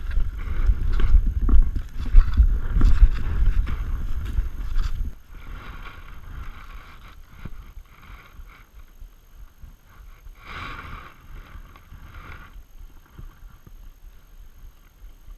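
Heavy rumble and thuds from a body-worn camera jostled by a running player's steps and movement, stopping abruptly about five seconds in. After that only quieter rustling, with a short burst of brushing noise near the middle.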